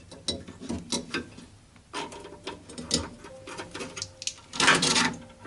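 Plastic wiring-harness clips and connectors being pushed and snapped into a car door, a run of irregular clicks and knocks, with a longer, louder scrape of handling near the end.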